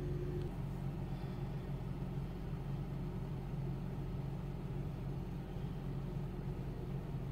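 Car engine idling: a steady low hum that does not change.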